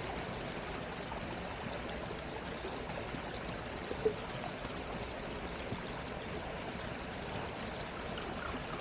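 Creek water babbling steadily, with one brief click about four seconds in.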